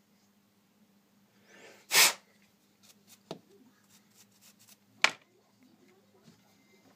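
Two sharp puffs of breath blown through a phone housing's clogged microphone hole to clear out grime softened with alcohol: a longer blast about two seconds in, led in by a short rising hiss, and a shorter puff about five seconds in.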